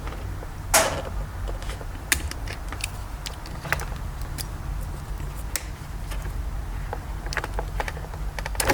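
Scattered sharp clicks and light knocks of a screwdriver working the spring clips that hold the driver's airbag in the steering wheel, the loudest about a second in, over a steady low hum.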